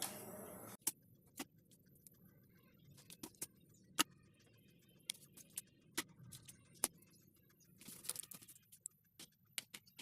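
Scattered light clicks and taps of small hard objects being handled and set down, the loudest about four seconds in and a short flurry around eight seconds; a steady background hiss cuts off suddenly under a second in.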